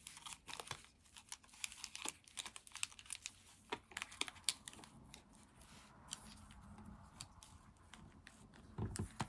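Foil booster-pack wrappers crinkling and clicking as a handful of sealed Pokémon card packs is shuffled in the hands and laid down one by one on a playmat, with a dull thump near the end.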